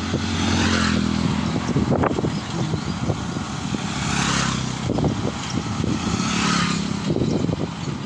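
Small motorcycles passing close by on a paved road, their engines running as they go past. Under them is a steady rumble of wind and road noise from the moving ride.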